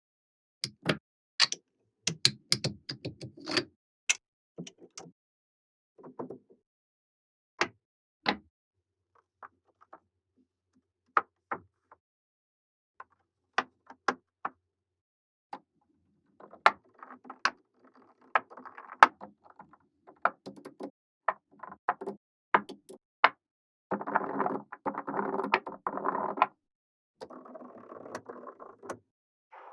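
Small magnetic balls clicking sharply as they snap together one at a time, at an irregular pace. Several longer stretches of busier clattering come through, the longest near the end.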